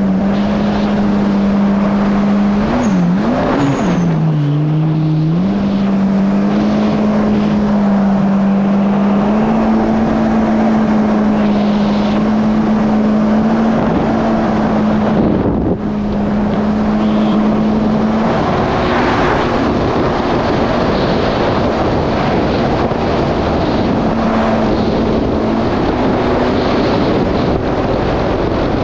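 Yamaha GP1800R SVHO jet ski's supercharged four-cylinder engine running at speed on the ocean. Its pitch dips and recovers a few times in the first five seconds, then holds steady. A loud rush of water and wind runs under it.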